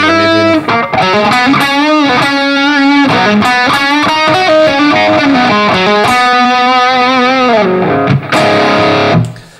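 Distorted electric guitar playing a lead line through a Line 6 Helix Brit 2204 amp model (a Marshall JCM800) boosted by a Tube Screamer model. Long sustained notes with string bends and vibrato, breaking off shortly before the end.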